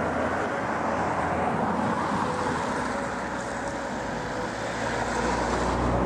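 Road traffic on a nearby road: a steady wash of car tyre and engine noise, with a low engine hum growing louder near the end as a vehicle comes closer.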